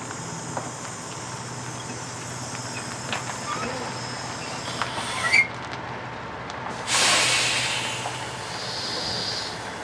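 Big rig's air brakes releasing air: a sudden loud hiss about seven seconds in that fades over a second or so, then a softer hiss near the end, over a steady low hum.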